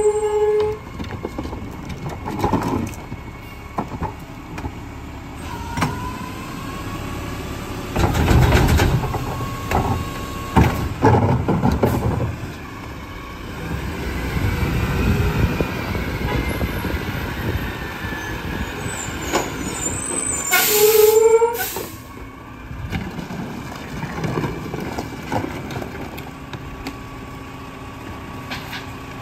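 McNeilus rear-loader garbage truck at work: engine running while trash and bins crash into the hopper and the packer compacts, with loud clattering knocks about eight and eleven seconds in and a rising-and-falling whine a little later. A short, loud hiss of air about twenty-one seconds in.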